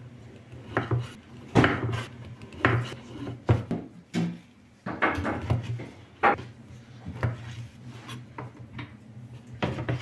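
A chef's knife cutting through a dry sausage and knocking on a wooden cutting board, sharp knocks at an uneven pace of about one a second.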